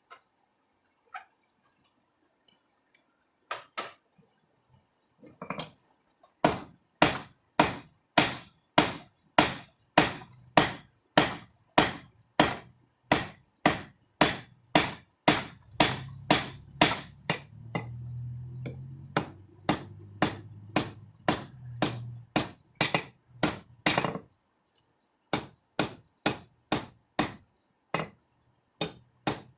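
Hammer blows on hot steel at an anvil, forging a rebar knife blank: a few light taps, then a steady run of ringing strikes about two a second. They stop briefly and start again near the end.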